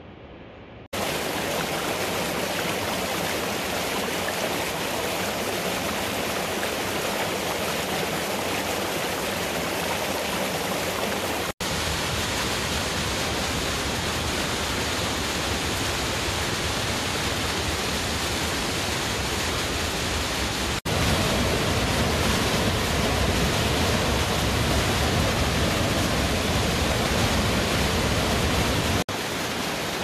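Mountain waterfalls and a torrent in a rocky gorge: a steady rush of falling water. It starts abruptly about a second in, breaks off briefly and shifts level at the shot changes, and is loudest in the last third before dropping back near the end.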